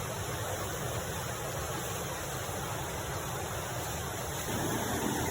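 Steady rush of flowing river water. About four and a half seconds in it grows a little louder and fuller.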